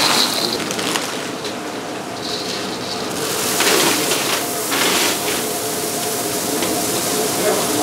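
A steady rushing hiss of hulled sunflower seeds pouring, first into a stainless steel bowl and then, from about three seconds in, in a brighter, harsher stream from the bowl into a large wok of red chili paste.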